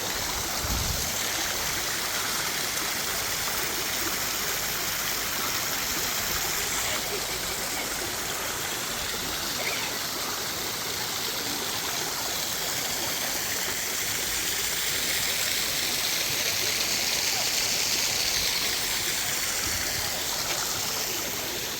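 Waterfall: a steady, even rush of falling and flowing water.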